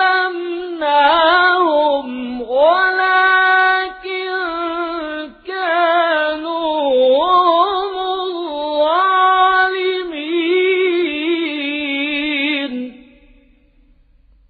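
A male Quran reciter chanting a verse in melodic tajweed style, his high voice drawing syllables out into long held notes with wavering ornaments and short breath pauses. The voice stops about a second and a half before the end.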